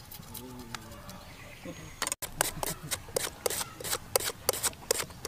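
A knife slicing quickly through a fresh root held in the hand, making sharp cutting clicks about four times a second; it starts about two seconds in. Before that there are only faint background voices.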